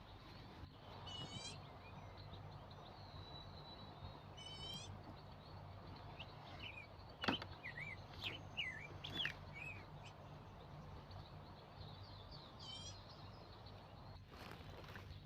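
Forest birds calling: a short, fast, falling trill comes three times, with a run of whistled, warbling notes in between. One sharp click sounds about seven seconds in, over a steady low hum.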